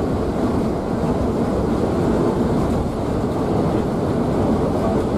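Steady cabin rumble of a Scania K360iB coach cruising on a highway: engine and tyre noise running evenly.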